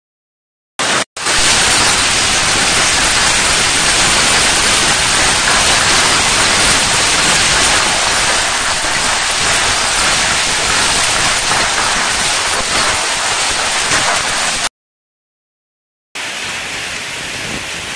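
Hailstorm: hail and heavy rain pelting down in a dense, steady, loud roar. It starts about a second in and cuts off suddenly near the end. After a short silence a quieter rain sound begins.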